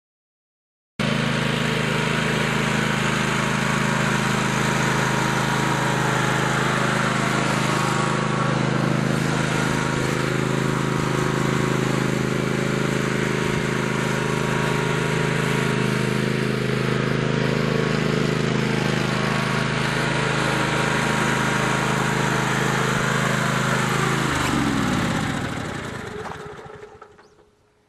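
Riding lawn mower engine running steadily at a constant speed. About 24 seconds in it is shut off, and its pitch falls as it winds down to a stop.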